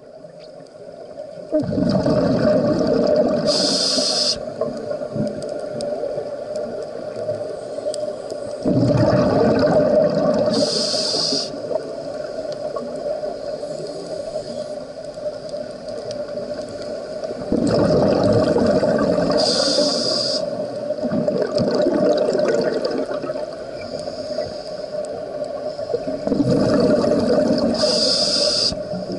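Scuba diver breathing through a regulator underwater: four slow breaths about eight seconds apart, each a long rumble of exhaled bubbles with a brief hiss from the regulator near its end.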